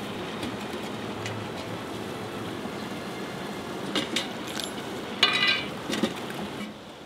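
Metal can's lid and wire handle clinking as the lid is lifted off: a few sharp clicks about four seconds in, a short metallic rattle about a second later and another couple of clinks, over a steady background hiss.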